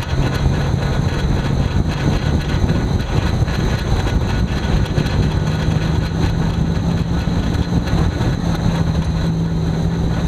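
Tyre, road and wind noise close behind the right front wheel of a 1989 Toyota pickup driving in four-wheel drive, with a steady low drone that steps up slightly in pitch about halfway through. This is the front axle noise that appears in 4WD.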